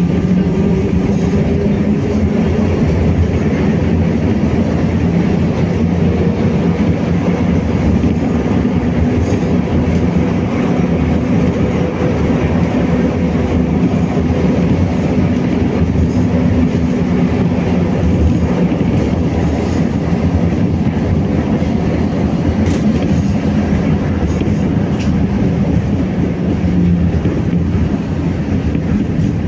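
BKM-60102 tram running between stops, heard from inside the passenger saloon: a steady rumble of wheels on rails under a constant motor hum, with a few clicks of the wheels over rail joints.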